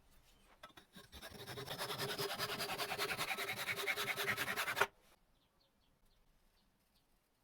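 A hand tool scratching over wood in fast, even strokes, several a second. It builds up about a second in and stops suddenly a little before the five-second mark.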